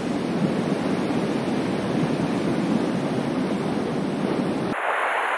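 Steady rush of sea surf washing against a rocky shore, mixed with wind noise on the microphone, cutting off abruptly near the end.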